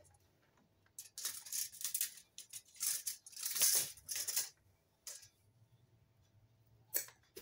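Cutters snipping and chewing through a recoil starter rope, a run of scratchy cuts over about three seconds, then a single short click near the end.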